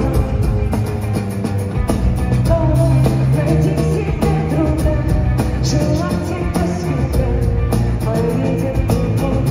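Live rock band playing through a large hall's sound system, with drums, electric guitars and keyboards behind a woman singing, heard from among the audience.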